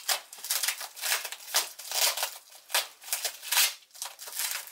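Plastic packaging and bubble wrap crinkling and rustling in repeated irregular bursts as a wrapped item is handled and unwrapped by hand.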